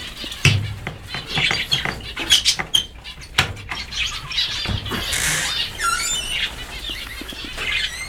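A flock of mixed aviary finches chirping and calling continuously, with several sharp clicks and knocks in the first half as the latch of a wooden aviary door is worked open by hand.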